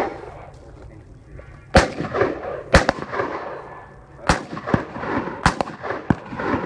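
A string of about six gunshots at uneven intervals, some half a second apart, others over a second, each followed by a short echo.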